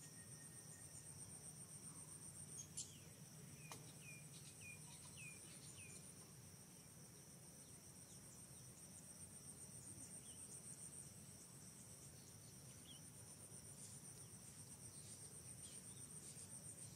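Faint, steady, high-pitched chorus of forest insects trilling. A few seconds in, a run of about five short chirps sounds above it.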